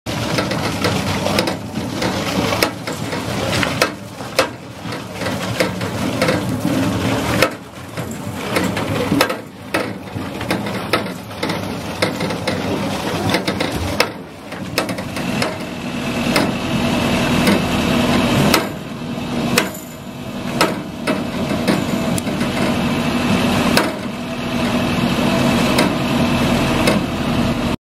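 Loader engine running while the hydraulic KWFS washer bucket works sugar beet, with repeated knocks and clatter as the beet tumbles in the bucket. A steady hum and whine join in about halfway.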